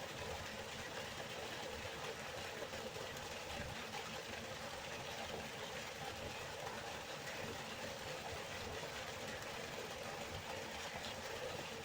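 Waterfall: water falling and rushing in a steady, even roar with a low rumble underneath, unchanging throughout.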